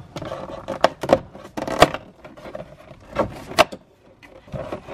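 Cardboard advent-calendar door being pushed in and torn open along its perforations: a string of sharp cracks and rustles.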